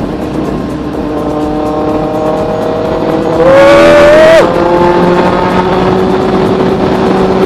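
Benelli TNT 600i's inline-four engine through a Toce aftermarket exhaust, riding through a flyover underpass. The engine note climbs slowly, then a loud rising rev sounds about three seconds in and cuts off abruptly about a second later. After that the engine runs steadily under wind and road hiss.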